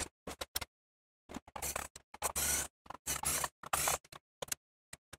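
Hands handling and taking apart the plastic casing of a Meade Autostar II telescope handbox with a small hand tool: a series of short scrapes and rubs of plastic on a cloth-covered table, with scattered clicks.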